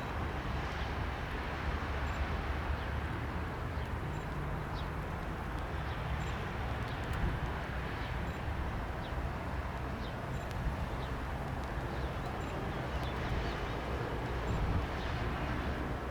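Beechcraft B200C Super King Air's twin Pratt & Whitney PT6A turboprops during its landing, heard from a distance as a steady rushing noise with a low hum.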